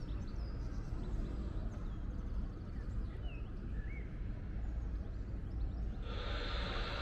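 City street ambience: a steady low rumble, with a few faint bird chirps and a hiss that comes in near the end.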